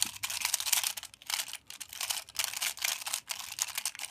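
Square-1 twisty puzzle being turned quickly by hand: rapid clicking and clacking of its plastic layers and middle slice, in quick flurries with brief pauses between moves.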